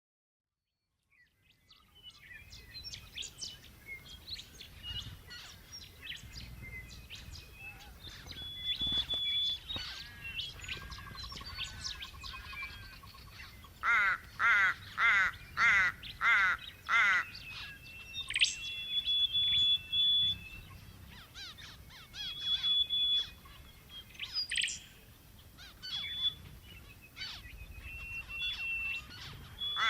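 Birds chirping and whistling, with short, steady whistled notes. About halfway through comes a run of six louder calls, roughly two a second.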